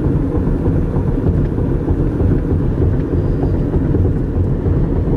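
Car driving at highway speed, heard from inside the cabin: steady road and wind noise, heavy in the low end.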